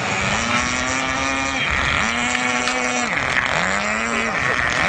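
Small engine of a radio-controlled model boat running on the water, opened up in three throttle bursts. Each time the pitch rises, holds high for about a second, then drops back, and a fourth burst starts near the end.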